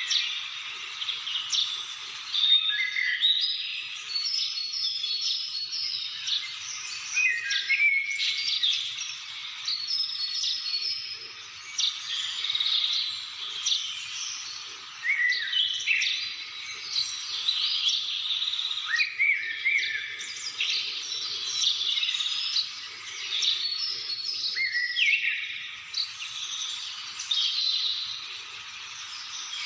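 Several birds calling and singing at once: a dense chorus of short chirps and whistles that overlap without a break.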